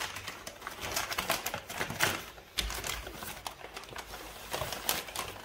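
Paper food wrapping rustling and crinkling as it is unfolded by hand: a run of irregular crackles, with a soft low bump near the middle.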